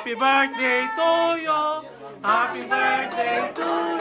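A group of men and women singing together without instruments, with a short break in the phrase about halfway through.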